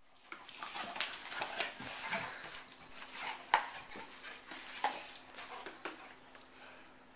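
A Weimaraner and a German Shorthaired Pointer play-fighting: irregular dog growling and scuffling, with two sharp louder sounds about three and a half and five seconds in, dying down near the end. It is rough play, not a real fight.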